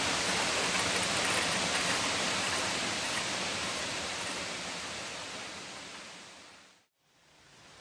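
Steady rushing roar of a waterfall plunging into a rock gorge. Over the last few seconds it fades out to a moment of silence, and a quieter rush then fades back in.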